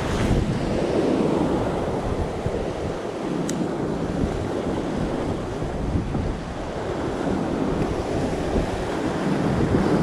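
Rough surf breaking over and washing around shoreline rocks, with strong wind buffeting the microphone. The surge swells about a second in and again near the end.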